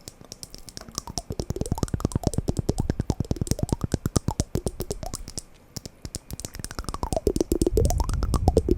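Rapid wooden block knocking, about ten knocks a second, with the tone of the knocks sliding up and down. It fades down around the middle and grows loud again near the end.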